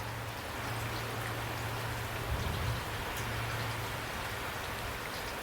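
Steady rain falling: an even hiss of raindrops, with a low hum underneath.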